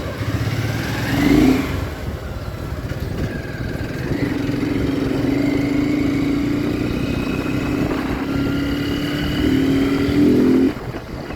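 Motorcycle engine under way: it revs up about a second in, then runs at a steady speed with road and wind noise, and its note cuts back suddenly near the end.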